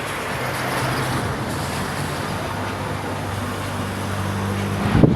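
Motor vehicle running with a steady engine hum and road noise; a few sharp knocks come near the end.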